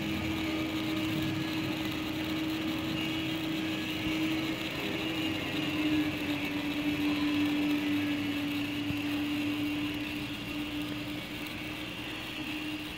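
Small electric drive motor of a KC 100 welding carriage running with a steady whine over a hiss; the pitch sags slightly midway and comes back up near the end.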